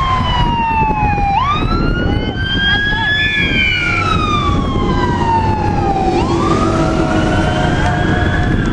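Emergency vehicle siren in a slow wail, its pitch gliding up and down about twice.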